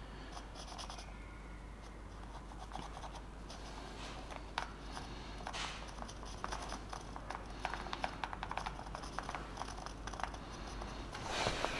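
Marker pen scribbling on a 3D-printed plastic part as an area is coloured in: quick short scratchy strokes, faint, getting busier about four seconds in.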